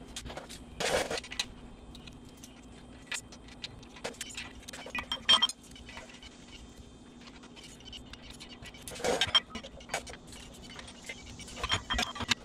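Hand tools clicking and clinking on the valve gear of a VW Type 1 air-cooled engine while the valve lash is set, in scattered irregular taps. A couple of louder short scuffing noises come about a second in and again near nine seconds, over a faint steady hum.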